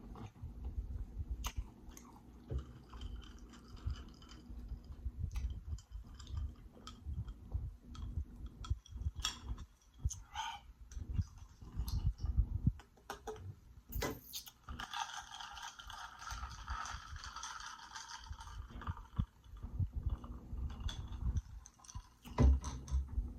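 Close-miked chewing and biting of seafood-boil food, a mix of soft thuds and irregular wet clicks. Just past the middle, a sustained sound is held for about four seconds.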